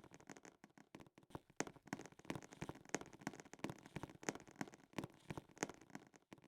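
Irregular sharp clicks and knocks, several a second, over a faint steady hum.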